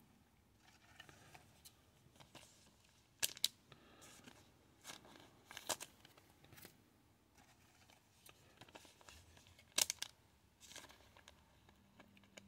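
Trading cards and foil pack wrappers being handled and torn: faint crinkling with short sharp rips, the loudest about three seconds in, around six seconds and near ten seconds.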